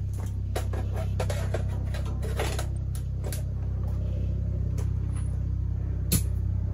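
Scattered light clicks and metal taps of hand work with an oil can on the Farmall F20 tractor's engine, the sharpest click about six seconds in, over a steady low hum.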